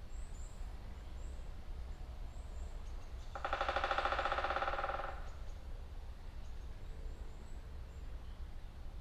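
Woodpecker drumming on a tree: one rapid roll of strikes about two seconds long, starting about three seconds in, with the trunk ringing under it. Faint high bird chirps sound in the first few seconds.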